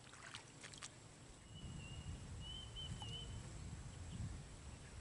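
Quiet outdoor ambience: a low rumble that swells through the middle, with a faint, high warbling call about two seconds in and a few soft clicks near the start.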